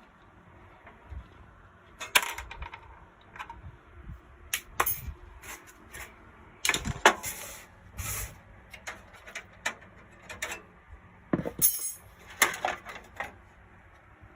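Irregular metallic clicks and clinks of a graphics card, slot bracket and screws being handled and fitted in a metal PC case.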